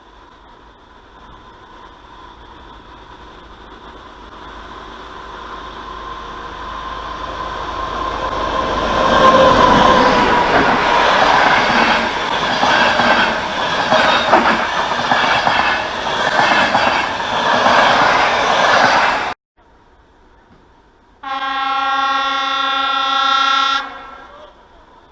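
A passenger train approaching and passing: its running noise builds steadily for about nine seconds into loud wheel clatter over the rail joints, then cuts off abruptly. After a short gap, a train horn sounds one steady blast of about two and a half seconds.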